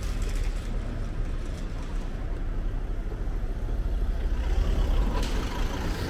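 Steady low rumble of city street noise, swelling with a brief hiss about four and a half seconds in.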